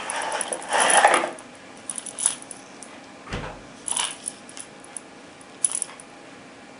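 Cardboard ammunition box scraping as the white plastic cartridge tray slides out of it, then a scatter of light clicks and small metallic clinks as the brass .38 Special cartridges shift in the tray and one is drawn out.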